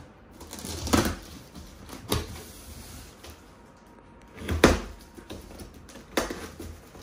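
Box cutter slicing through packing tape along the seam of a cardboard box, heard as about four short scraping, tearing strokes with quiet between them, the loudest about two-thirds of the way through.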